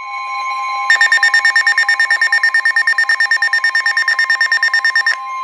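Emergency Alert System attention signal: a steady two-note electronic tone, joined about a second in by a fast electronic pulsing ring of about ten beats a second that cuts off near the end while the steady tone carries on.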